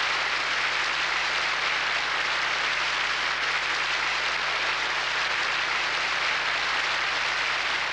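Audience and dais guests applauding, a steady, even clapping at one level.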